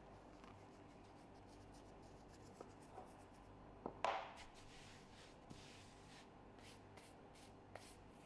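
Hand sweeping and rubbing flour across a marble countertop: faint, dry scratchy swishes in quick strokes, with a brief knock and scuff about four seconds in.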